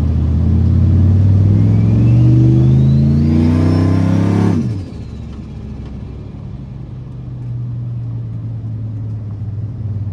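Turbocharged car engine accelerating hard, its turbo whistle climbing in pitch. About four and a half seconds in the throttle is lifted: the engine drops sharply and the turbo whistle falls away as it spools down with a flutter. The engine then runs on more quietly at a steady lower speed.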